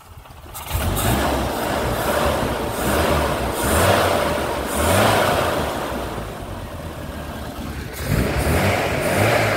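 1982 Triumph TR7's 2-litre four-cylinder engine running just after being started, its loudness rising and falling several times as it is blipped. It sounds well enough, with no smoke.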